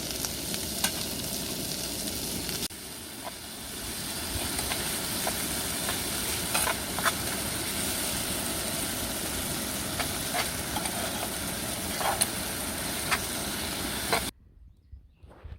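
Food sizzling as it fries in a pan, a steady hiss with scattered sharp pops and crackles. It cuts off abruptly near the end.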